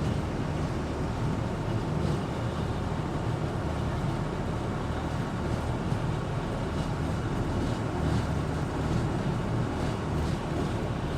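Amphibious duck boat's engine running steadily as the boat cruises on the river, a constant low drone with a wash of wind and water noise.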